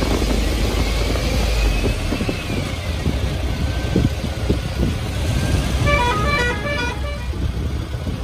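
Open-top VW Safari convoy driving, with engine rumble and wind buffeting on the microphone. About six seconds in comes a quick run of short high beeps, like a musical car horn.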